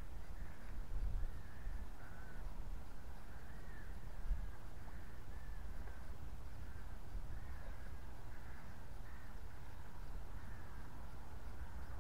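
Birds calling over and over, short arched calls following one another over a low, steady rumble.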